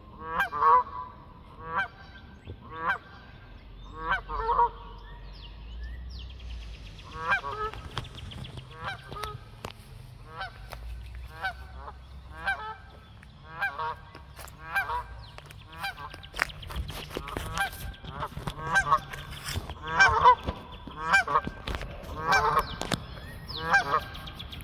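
Geese honking repeatedly, short nasal honks about once a second, sometimes in quick pairs, coming thicker toward the end.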